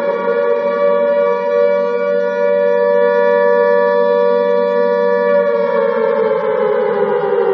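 Alarm siren wailing: a loud, steady pitched tone held for about five seconds, then sliding down in pitch toward the end.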